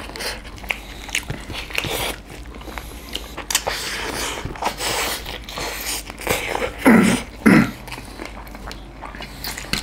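Close-miked mouth sounds of people eating chicken biryani by hand: chewing and biting with many small wet clicks, and two louder short mouth sounds about seven seconds in.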